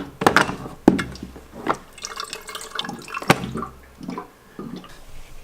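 Irregular knocks and clinks of things being handled, with water sounds in between, as at a kitchen sink.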